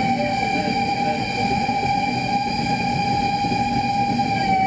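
Steam locomotive whistle held as one long steady note, heard from inside a moving coach over the low rumble of the carriage wheels.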